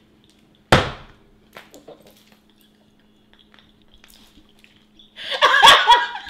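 A single sharp thump about a second in, then near-quiet with a few small knocks, then a woman laughing loudly and shrilly in the last second or so.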